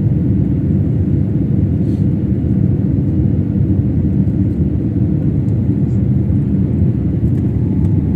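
Steady low rumble of an airliner's jet engines and rushing air heard inside the cabin during the climb after take-off.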